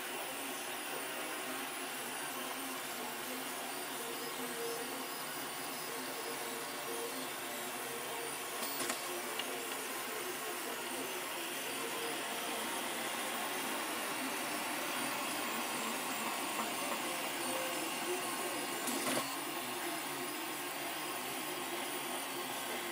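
Delta 3D printer printing a gear: its stepper motors whine in shifting tones as the effector moves, over the steady hiss of the print-head cooling fan. Two brief clicks sound, about nine seconds in and again about ten seconds later.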